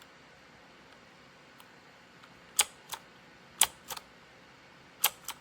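Keys on a mechanical keyboard with red linear switches pressed three times, about a second apart, starting about halfway in; each press is a sharp clack followed a fraction of a second later by a softer one.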